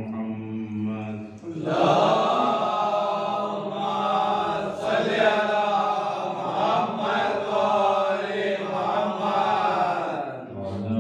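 Male voice chanting a slow, melodic religious recitation with long held notes. A steady held note gives way about one and a half seconds in to a fuller, wavering melodic passage, and a held note returns near the end.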